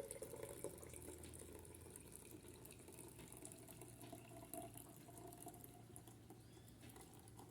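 Faint trickle of homemade syrup being strained through a strainer into a small glass jar.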